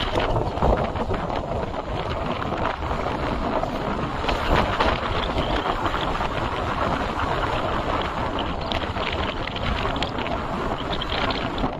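Steady rushing wind noise buffeting the microphone of a moving motorbike, with the bike's running and road noise underneath.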